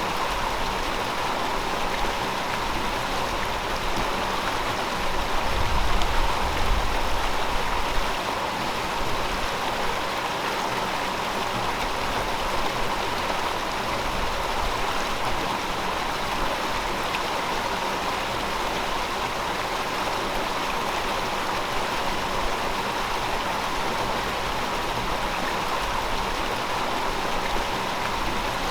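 River water flowing steadily, an even rushing hiss. A low rumble swells for a few seconds about five seconds in.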